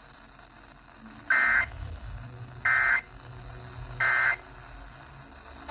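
Emergency Alert System end-of-message data tones from a NOAA Weather Radio broadcast: three short, identical screechy digital bursts about a second and a half apart, marking the end of the flash flood warning.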